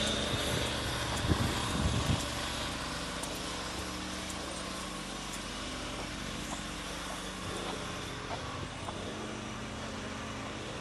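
An engine running steadily, with a few knocks about one to two seconds in.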